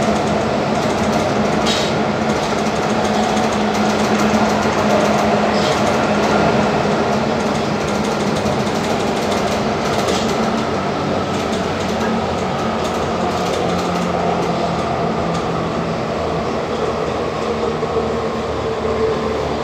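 Athens Metro Line 1 train running, heard from inside the carriage: a steady rumble of wheels on track with a steady hum. A few brief high clicks come through at intervals.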